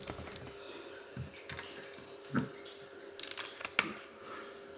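Scattered light clicks and soft knocks of a laptop and its cable being handled on a table, with a cluster of sharper clicks like keyboard keys a little after three seconds in.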